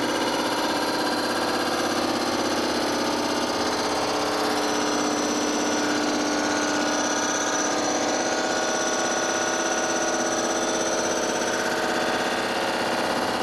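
Rottler CNC surfacing machine running a programmed surfacing pass, its rotating cutter head milling the deck of a cylinder head with a steady machine whine made of several held tones. A higher tone joins about four seconds in and fades away near the end.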